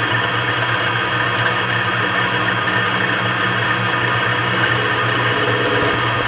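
Benchtop mini lathe running steadily at high speed, a hum with a continuous mechanical whir, while an indexable carbide turning tool is hand-fed along the spinning workpiece.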